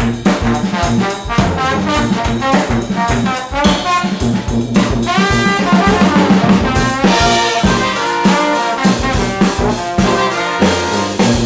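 Brass band playing a groovy dance-party tune live: sousaphone bass and drum kit, with hand claps at first. From about seven seconds in, the trumpet, trombones and saxophones play together.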